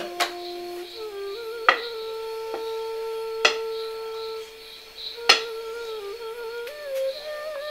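Background film score: a flute-like instrument holding long notes that step slowly in pitch, with four sharp percussive strikes about every second and a half to two seconds.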